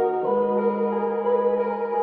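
Background music: sustained synth chords in an ambient style, the chord changing about a quarter of a second in.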